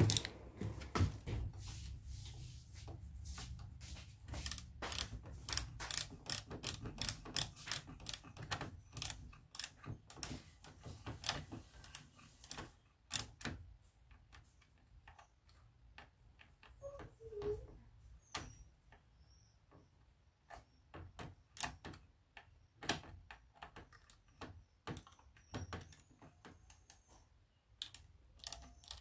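Rapid, irregular small clicks and ticks of plastic and metal parts being handled behind the Honda Scoopy-i's handlebar cover. They come thick and fast for the first dozen seconds, then thin out to scattered clicks.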